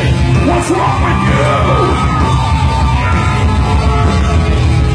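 Metal band playing live at full volume: distorted guitars, bass and drums, with high pitched lines bending and sliding over the top.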